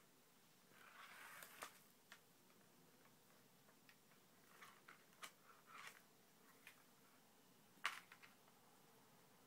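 Faint, scattered clicks and taps of cats pawing at a plastic circuit ball-track toy, the sharpest tap about eight seconds in.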